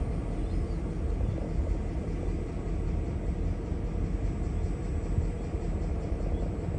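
Double-stack container freight train rolling past, the steady rumble of its well cars' wheels on the rails.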